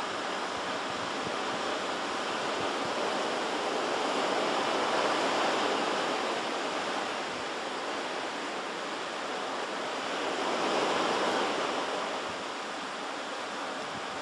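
Pacific Ocean surf washing on the shore: a steady rush of breaking waves that swells louder twice, about five seconds in and again near eleven seconds.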